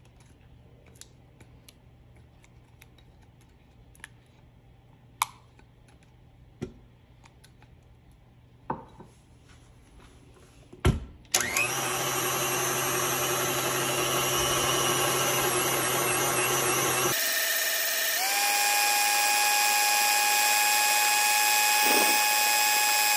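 A few light clicks and knocks, then about halfway through a KitchenAid stand mixer's motor starts and runs steadily, beating heavy cream into pound cake batter. About two-thirds of the way in its sound shifts to a slightly higher, steady whine.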